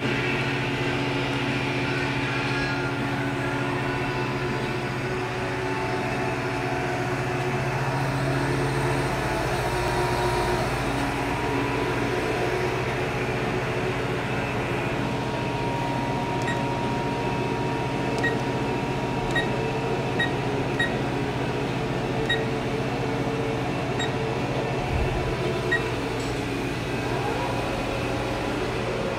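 Haas VF-4 vertical machining center powered up and idling: a steady mechanical hum with several held tones, some of which shift and glide upward near the end. In the second half come a run of about eight short high blips.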